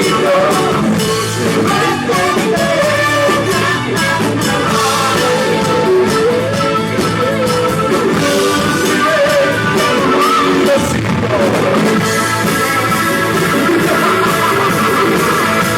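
Rock band playing live, guitar and drum kit, with a wavering, bending lead melody over it for most of the stretch, giving way to steadier held chords about twelve seconds in.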